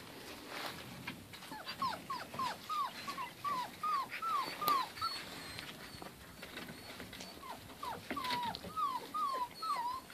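Herding-dog puppies whining and yipping in quick runs of short, falling cries, about three a second: a run of about ten from a couple of seconds in, and a second run near the end.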